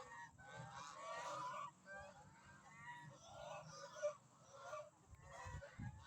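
Ducks and a chicken hen calling in a busy run of short, overlapping honking squawks.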